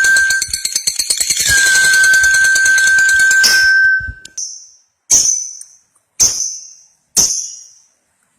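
Lovebird giving its long, rapid chattering trill ('ngekek panjang') over a steady high whistle-like tone. After about three and a half seconds the chatter breaks off into single sharp high chirps about a second apart, each trailing off in an echo.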